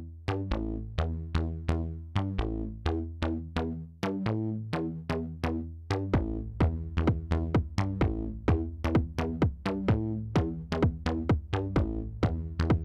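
Electronic background music: an even run of short, pitched notes over a bass line, with the beat filling out about halfway through.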